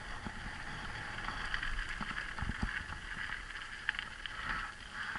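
Mountain bike rolling fast down a loose gravel singletrack: tyres crunching over dirt and stones, with occasional sharp knocks from the bike and wind buffeting the microphone.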